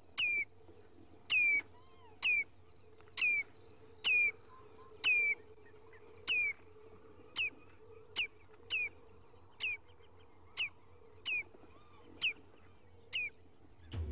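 Bird-like electronic chirps from an electro-acoustic score, each a quick downward slide in pitch, repeating about once a second over a faint steady high tone and a low hum. The chirps become shorter and fainter in the second half.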